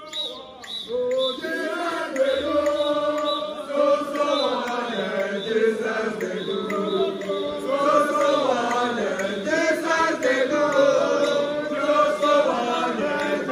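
A group of voices singing or chanting together without instruments.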